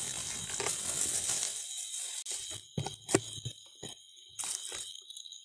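Footsteps crunching and rustling through dry leaf litter and dry grass, a continuous rustle at first, then a few separate crunching steps. A steady high-pitched insect drone runs underneath.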